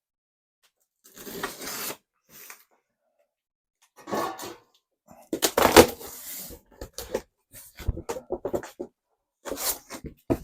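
Cardboard delivery box being opened by hand: packing tape tearing and cardboard rustling in several bursts, the loudest about six seconds in, then a run of short rustles and knocks as the flaps and contents are handled.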